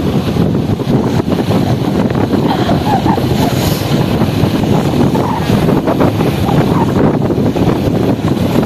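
Wind buffeting the microphone over the steady running noise of a moving vehicle.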